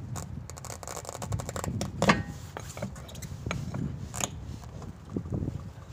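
Steel spare wheel scraping and knocking against the hub and wheel studs as it is worked into place by hand, with irregular small clicks and a sharper metallic knock about two seconds in and another about four seconds in.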